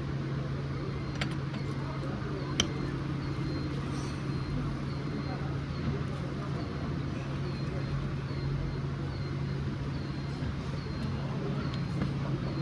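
A motorcycle engine running steadily with an even hum, with voices in the background.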